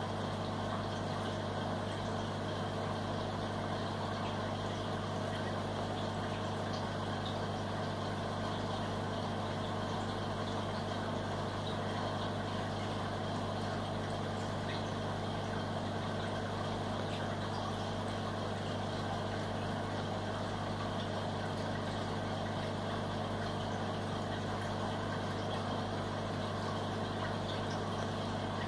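Aquarium pump humming steadily: an unchanging low hum with a steady hiss above it.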